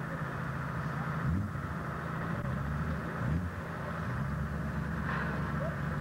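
Heavy truck engine running steadily at idle, its revs rising briefly about a second in and again a little past three seconds.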